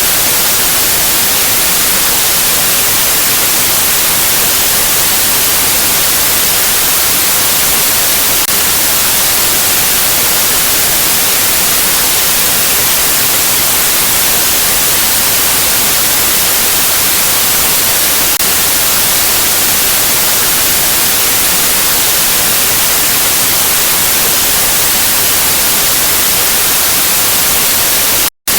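Steady, loud white-noise static, an even hiss with the most energy in the high end. Near the end it cuts out completely for a split second, then resumes.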